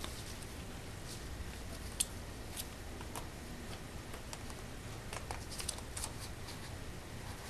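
Irregular sharp clicks of a small plastic Kinder egg capsule being bitten and knocked about by a small dog, the loudest click about two seconds in and a quick run of clicks a little past halfway.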